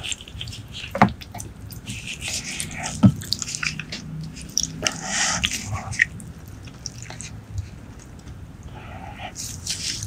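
Wet, sticky squelching of braised pork leg being torn apart by hands in plastic gloves, then dipped into a bowl of chili sauce, with sharp clicks about a second and three seconds in.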